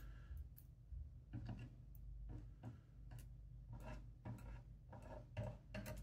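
Faint, irregular metallic ticks and clicks, about a dozen, from steel tweezers setting tiny pins into a Securemme K64 EVO dimple lock's plug, over a steady low hum.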